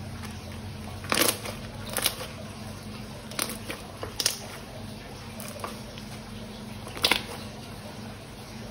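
Slime and balloon handling: about five short sharp crackles and clicks, spread unevenly, over a steady low hum.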